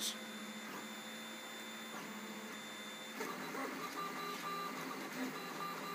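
MendelMax RepRap 3D printer printing: its stepper motors whine in shifting tones as the y-axis bed moves back and forth, over the steady whir of the print-head cooling fan. About three seconds in the movement gets busier, with a higher tone stepping on and off.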